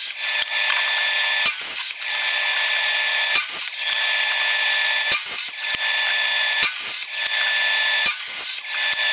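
Miter saw motor running with a steady high whine while crosscutting wooden boards into one-foot lengths, with several sharp knocks along the way.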